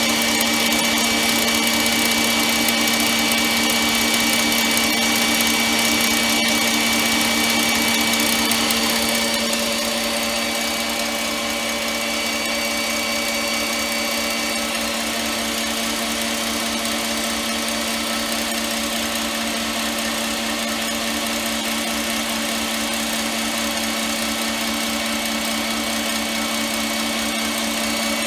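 KitchenAid bowl-lift stand mixer running steadily on high speed, its wire whisk beating egg whites and sugar into a stiff meringue: a constant motor hum with a steady whine. It gets slightly quieter about nine seconds in.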